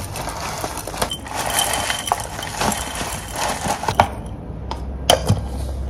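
A steady hiss with small clicks and rustles of kitchen handling, which drops away about four seconds in. Then a glass jar knocks down on a stone counter, followed by a couple of light clinks.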